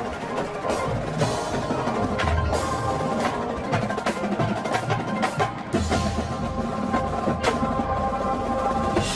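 Drum corps performing: a marching drumline of snares, tenors and bass drums plays sharp rhythmic strikes over sustained pitched chords, with mallet and bell tones.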